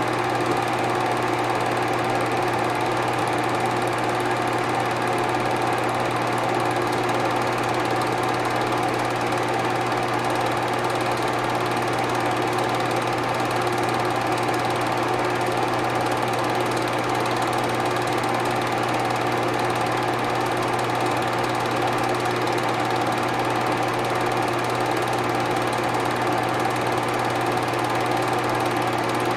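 Film projector running: a steady mechanical whir with an even hum underneath, unchanging throughout.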